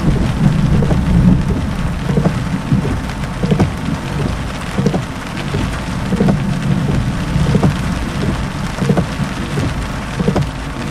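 Heavy rain drumming on a car's roof and windshield in a thunderstorm: a continuous patter of drops hitting, each sharp, over a steady low rumble.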